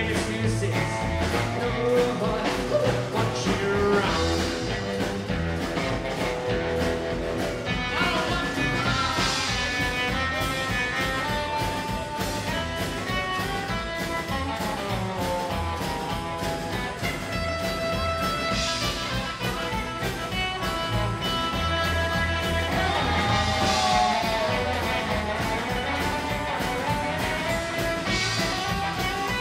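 Live rockabilly band playing a steady-beat number on acoustic guitar, upright double bass and drum kit.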